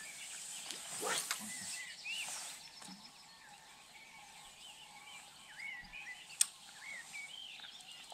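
Wild birds chirping and singing outdoors, many short rising and falling notes overlapping. There are a couple of brief whooshes in the first two seconds or so and a single sharp click a little after six seconds in.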